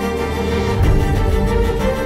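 Theme music with sustained tones over a heavy, steady bass.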